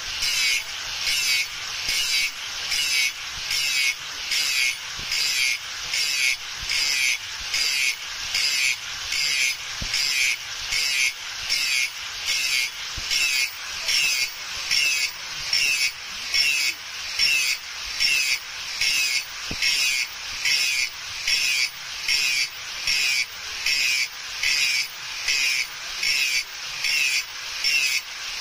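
A hand file rasping along the steel of a cleaver blade in a steady rhythm of even strokes, about three every two seconds.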